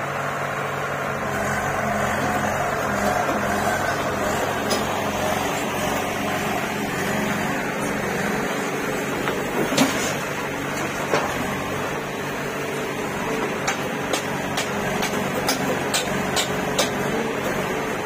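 Diesel engines of a JCB 3DX backhoe loader and an Eicher tractor running steadily, with a clatter as the loader bucket tips earth and stones into the tractor's steel trolley about ten seconds in, followed by a string of sharp knocks.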